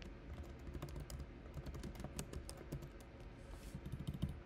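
Typing on a computer keyboard: a quick, irregular run of keystrokes.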